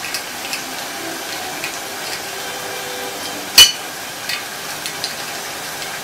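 African grey parrot's beak picking at the ring-pull tab of an aluminium beer can: a few light clicks and one sharp, loud metallic click about three and a half seconds in, over a steady background hiss.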